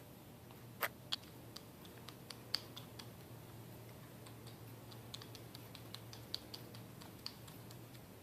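Faint, irregular light clicks and taps from hands and small parts on a bicycle hydraulic disc brake, about twenty in all, with two sharper clicks about a second in.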